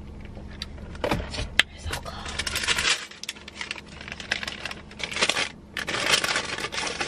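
A paper bag crinkling and rustling in bursts as it is handled and opened, after a few sharp clicks about a second in. A low steady hum stops about three seconds in.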